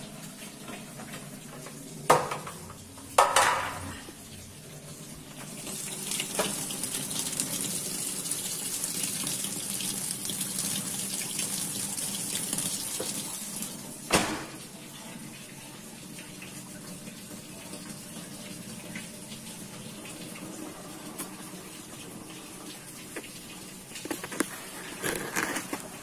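Samsung top-loading automatic washing machine filling its drum with water, a steady rush of incoming water. The rush is loudest for several seconds in the middle and drops after a sharp knock, with a few other knocks and handling sounds from the lid and body of the machine.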